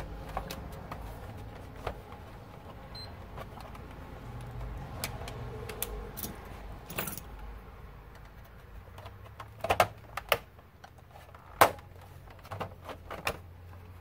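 Plastic clicks and scraping as a PlayStation 4's top cover is pried loose with a thin metal pry tool, with several sharp snaps in the second half as the cover's clips let go.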